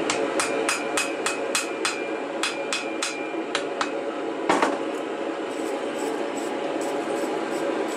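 Hand hammer striking a red-hot chain-Damascus steel blade billet on an anvil. A quick run of ringing blows, about three or four a second, gives way to one heavier blow about halfway through, then lighter, fainter taps.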